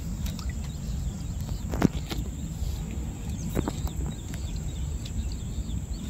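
Gill net being hauled by hand into a boat: a few light knocks and drips from the wet net, over a steady low rumble.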